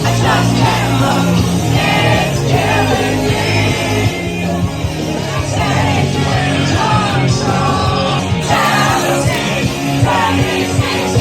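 Loud music with singing and a steady bass line.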